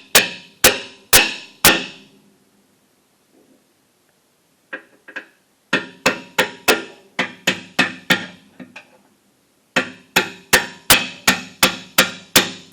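Hammer tapping on the nut threaded onto the end of a Jeep TJ lower control arm bolt to drive the bolt out. Sharp ringing strikes come in three runs, about two or three a second, with short pauses between the runs.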